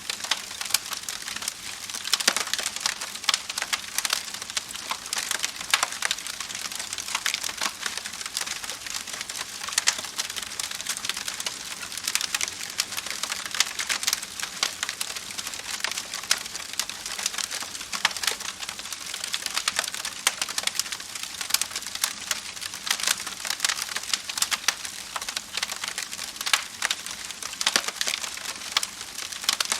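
Wood fire crackling steadily: dense, irregular pops and snaps over a soft hiss, with a few louder cracks.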